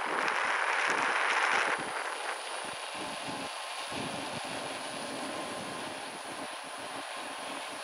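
Wind rushing over the microphone, with road noise, while riding along a paved road. It is louder for the first couple of seconds, then settles to a steadier, lower hiss.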